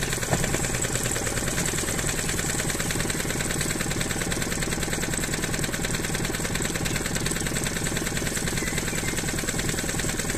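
A small boat motor running steadily, with a fast, even beat, as the boat moves slowly along the river.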